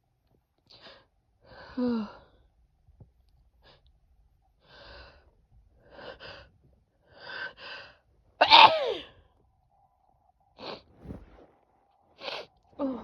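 A woman's sneeze build-up: a run of short, catching, gasping in-breaths, then one loud sneeze about eight and a half seconds in, followed by a few quick breaths.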